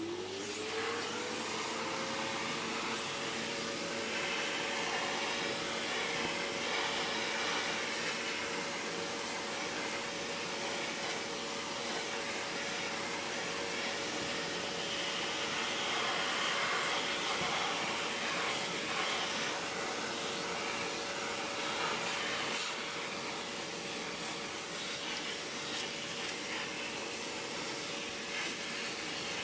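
Old vacuum cleaner's motor spinning up to speed, its whine rising over the first two seconds, then running steadily. The hose nozzle sucks lint off a tumble dryer's filter mesh.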